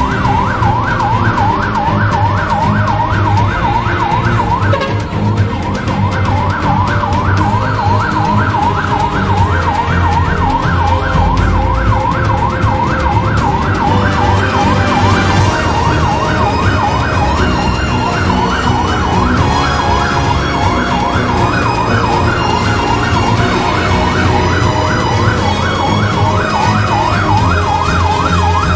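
Fire truck's electronic siren in a fast yelp, sweeping up and down in pitch several times a second without a break, over a steady low rumble.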